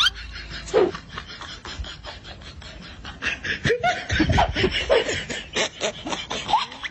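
People laughing in quick, repeated bursts, growing louder about four seconds in.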